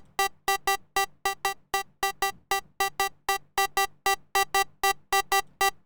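Serum 2 software synth playing a sync-warped sawtooth lead whose volume is chopped by an LFO into short repeated notes at one pitch, about four to five a second in a slightly uneven rhythm, over a faint low hum.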